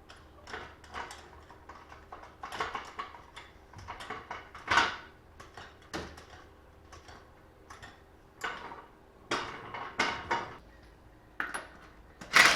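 Irregular metallic clanks and clinks of tools and parts being handled during lug-nut and wheel work, about a dozen knocks at uneven spacing. The loudest clank comes near the end and rings on briefly.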